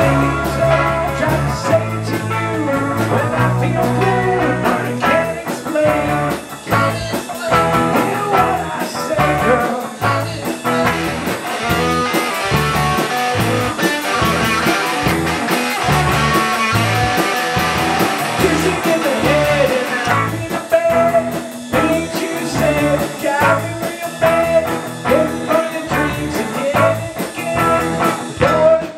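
Live rock band playing: electric guitars and drums with a steady beat, and a man singing into a microphone.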